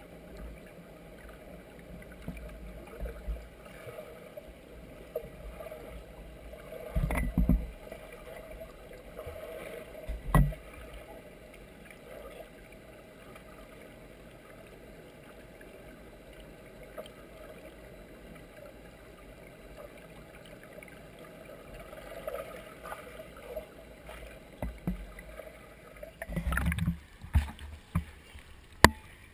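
Muffled underwater pool sound heard through a submerged camera's housing, with dull low thumps about seven and ten seconds in. Near the end the camera breaks the surface and water splashes and slaps against it in short sharp bursts.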